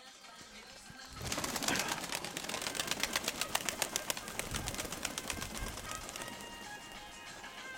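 Pigeons flapping their wings close by, a sudden burst of rapid wingbeats about a second in that fades over the following seconds.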